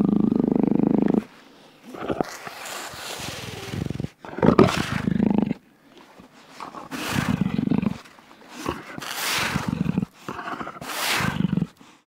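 Jaguar growling and snarling: a long low growl that breaks off about a second in, then five shorter growls, each with a breathy hiss, coming a second or so apart.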